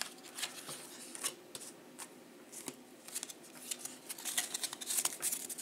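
A stack of Donruss baseball trading cards being handled and shuffled by hand: a run of light clicks and flicks as the card edges slide and snap against each other, busier near the end.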